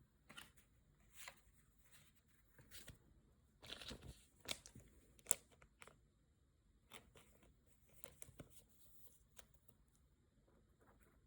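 Pokémon trading cards and their packaging being handled: scattered light rustles, crinkles and taps, with the sharpest snap about five seconds in.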